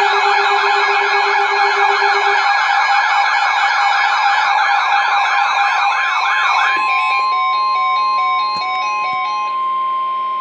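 Electronic emergency-alert siren warbling fast, layered over a steady lower tone. About seven seconds in, the warble stops and a single steady alert tone holds, with short stepping beeps, until it cuts off abruptly just before the warning announcement.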